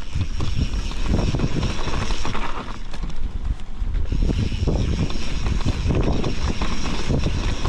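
A mountain bike riding a dirt trail: steady wind rush on the microphone over tyre rumble, with quick rattles and knocks from the bike as it rolls over rough ground.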